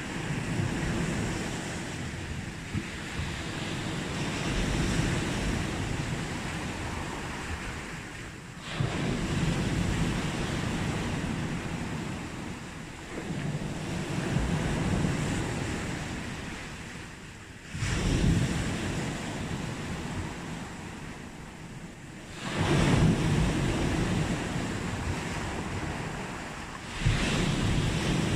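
Sea waves breaking on a beach and washing back, a fresh wave surging in about every four to five seconds.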